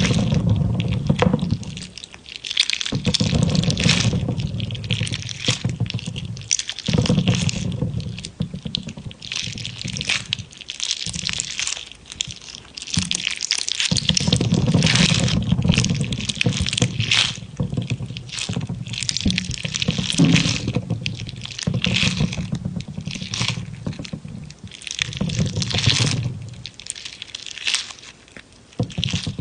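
Jelly being squished and popped: irregular wet, crackly squelches that come in bursts of a second or two, some with a heavier, lower squish underneath.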